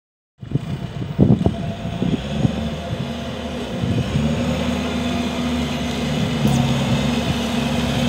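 Diesel engine of a New Holland B115B backhoe loader running steadily as the machine drives closer, growing slowly louder, with a few knocks between one and two and a half seconds in.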